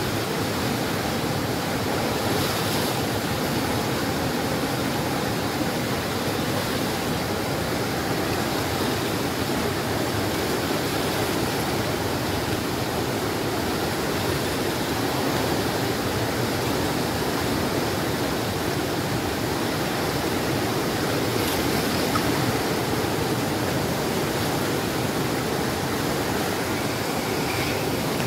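A river in flood, running bank to bank: a steady rushing of muddy floodwater churning through rough standing waves.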